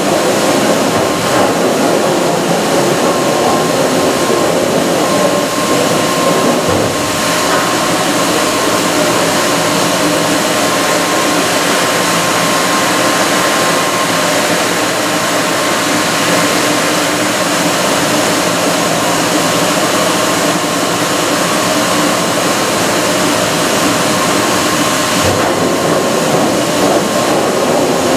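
Northwood Machine 3-axis CNC stone machining center running, its head traversing along the gantry bridge. It makes a loud, steady mechanical hiss with a thin constant whine, shifting slightly about a quarter of the way in and again near the end.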